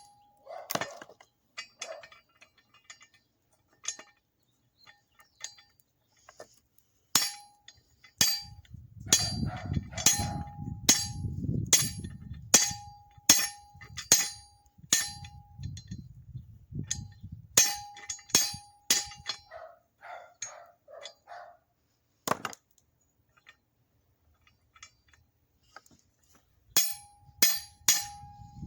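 Hammer blows on a C-frame guillotine forging tool as a hot railroad spike is tapered. Sharp metal strikes ring briefly after each blow, in runs of about one or two a second with pauses between.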